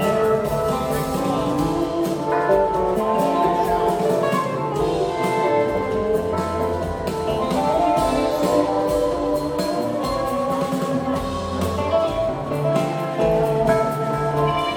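Live rock band playing: electric guitars, bass guitar, keyboards and drum kit, with a steady beat and sustained guitar notes, heard from the audience in the hall.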